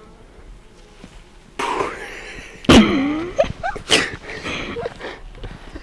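A man's sudden breathy vocal bursts about a second and a half in, the loudest and sharpest near the middle, followed by short broken laughs.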